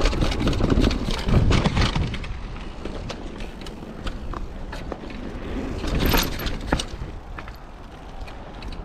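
Mountain bike ridden over a dirt trail: rolling tyre noise with frequent rattles and knocks. It is loudest in the first two seconds and again about six seconds in.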